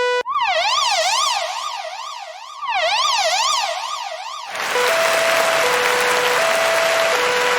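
Electronic ambulance siren in a fast rising-and-falling yelp that fades down and swells back twice. About four and a half seconds in it changes to a two-tone hi-lo pattern that alternates between two notes, with a steady hiss behind it.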